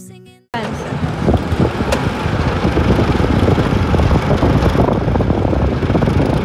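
Roller coaster car being hauled up the chain lift hill: a loud, steady, dense clattering rattle of the lift mechanism and car, cutting in suddenly about half a second in.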